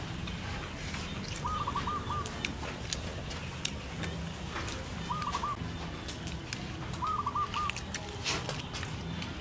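A bird calling three times, each call a quick run of three or four short notes at one pitch, over scattered light clicks of cutlery and eating at the table.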